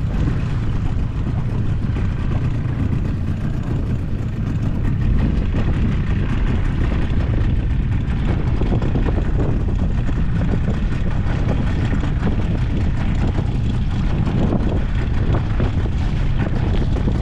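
Small Suzuki outboard motor running steadily at trolling speed, mixed with a rough wind rumble on the microphone.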